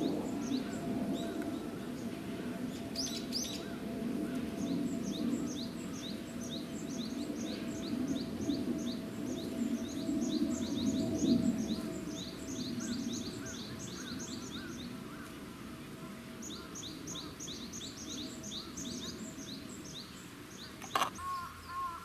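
Small songbirds giving rapid runs of short, high chirps, about five a second, that pause briefly and stop shortly before the end, over a steady low rumble of background noise. A sharp click sounds near the end.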